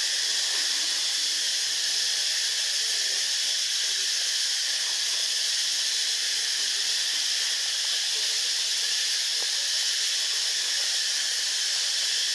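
A steady, high-pitched hiss.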